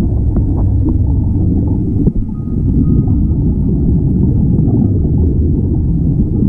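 Steady underwater rumble and bubbling, recorded underwater, from air venting out of surface-supplied dive helmets, with a brief break about two seconds in.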